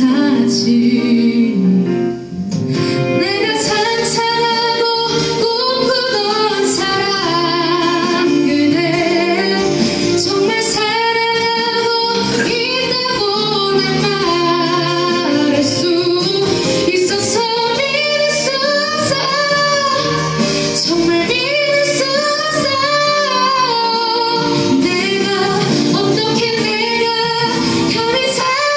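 A woman singing live into a microphone over an instrumental accompaniment with guitar, with a brief dip in the music about two seconds in.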